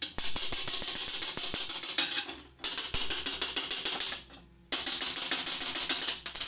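Stick-welding arc crackling on a joint in solid mild-steel square bar, in three runs of one to two and a half seconds with short breaks between as the arc is struck and broken.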